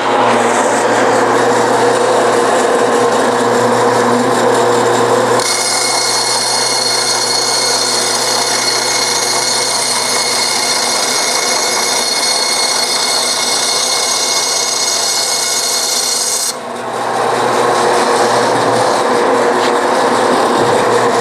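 Forrest Model 214 tilting-head bandsaw with a half-inch, 3-tooth-per-inch blade, running and cutting high-density polyethylene foam. About five seconds in, higher steady tones abruptly join the running sound. These stop after a short dip near two-thirds of the way through, leaving the plain running sound.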